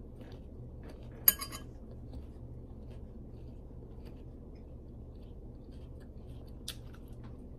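A metal spoon clinks once, sharply and with a brief ring, about a second in. A smaller tap follows near the end.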